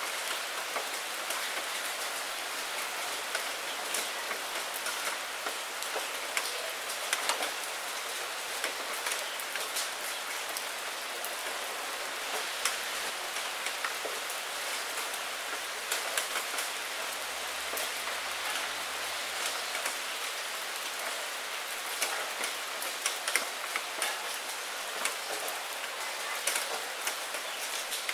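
Steady rain falling on a puddle and wet fallen maple leaves: a constant hiss with many sharp individual drop splashes scattered through it.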